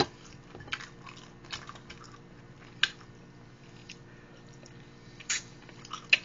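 Eating sounds: biting into and chewing buffalo chicken wings, with scattered short wet clicks and smacks, the sharpest about three seconds in and just past five seconds.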